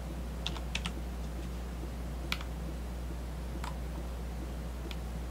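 A few scattered clicks of a computer mouse and keyboard, over a steady low hum.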